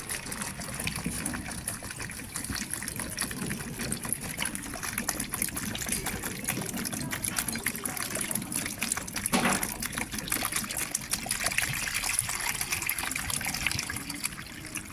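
Water pouring and trickling steadily into a flood-alarm model, raising the water level at its sensor. There is a louder gush about nine seconds in.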